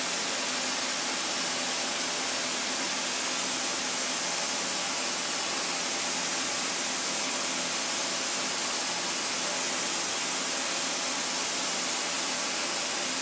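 Steady, even hiss of a CNC machining center running a small 2-flute carbide ball end mill at about 20,000 rpm in a very light finishing pass on copper, with no chatter or cutting knocks.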